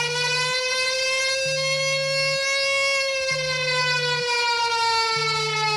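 Siren-style wake-up alarm tone: a slow wail that rises a little and then falls, over a low buzz that pulses on and off about every two seconds.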